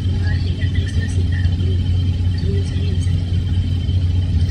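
Steady low hum, loud and unchanging, from a faulty MacBook microphone whose weak signal has been boosted and run through noise-reduction software. Faint warbly traces sit above it.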